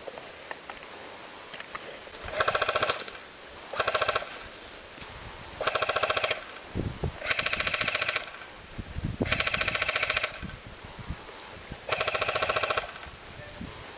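Airsoft electric guns firing short full-auto bursts, a rapid, even rattle of shots, six bursts in about ten seconds.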